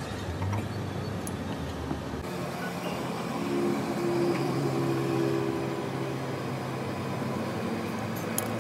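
Steady mechanical hum of a running engine or machine, with a few faint clicks.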